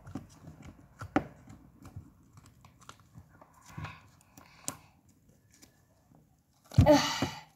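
Pink slime being pulled from its jar and worked by hand: scattered small sticky clicks and pops, then a loud squishing burst near the end as it is squeezed.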